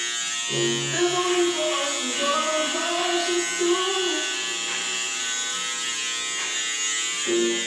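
A small electric motor buzzing steadily, with voices over it.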